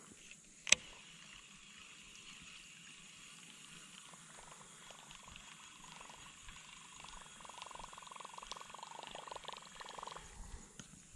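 A single sharp click about a second in, then a spinning fishing reel being cranked: a faint rattling whir that builds over the last few seconds and stops shortly before the end.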